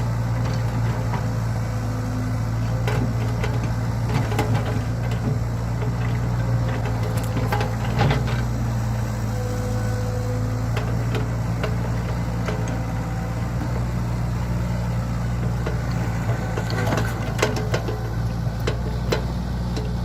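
Heavy earth-moving machinery's diesel engine running steadily, with scattered metallic clanks and knocks: a strong one about eight seconds in and several near the end.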